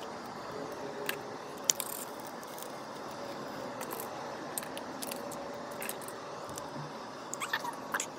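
Slime being squished and worked by hand, giving scattered small sticky clicks and pops, with a cluster of them near the end.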